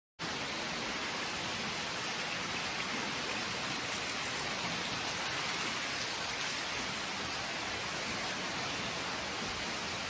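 Steady rushing of running water in a limestone cave, cutting in abruptly just after the start and holding level throughout.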